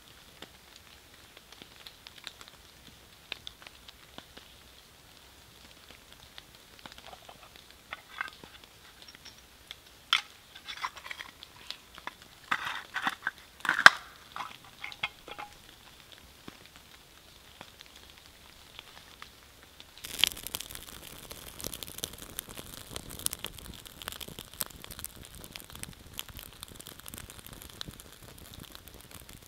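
Scattered light crackles and crinkling, loudest about halfway through. Then, about two-thirds of the way in, rain pattering starts suddenly and keeps up as a steady hiss of fine drops.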